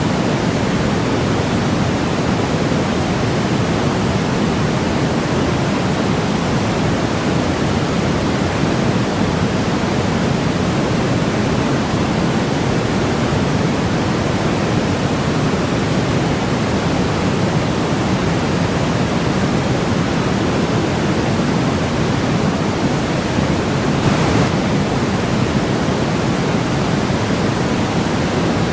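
Steady white noise for sleep: an even, unchanging hiss weighted toward the low end, closer to pink noise than pure white. A faint brief swish rises out of it about 24 seconds in.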